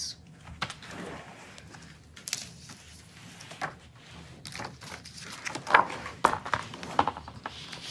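Rustling, scuffing and scattered knocks as a hardcover picture book is handled, opened and its pages turned close to the microphone, with bumps from the recording device being moved.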